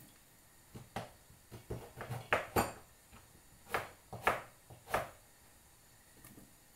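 Chunks of root vegetable dropped one by one into a pot of broth, a string of about nine plops and splashes, several in quick succession in the middle and a last few spaced about half a second apart.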